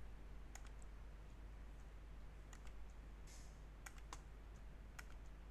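Faint clicking of a computer mouse and keyboard: short sharp clicks, several in quick pairs, over a low steady hum.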